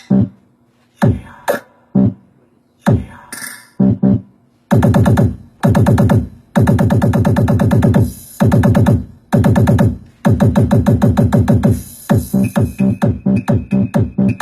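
Electronic dance music with heavy bass, played through a Crown D5 200 W amplifier and speaker as a sound test. Single deep drum-machine hits come about a second apart. Dense sustained synth bass follows about five seconds in. Near the end the hits turn into a fast roll that speeds up.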